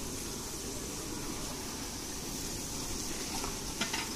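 Big iron kadai of dried-mango khata sizzling and simmering over a wood fire, a steady hiss, with a few scrapes and knocks of a stirring paddle against the pan near the end.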